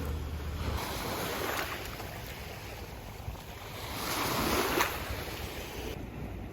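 Sea waves washing in, two swells of rushing water, with wind buffeting the microphone.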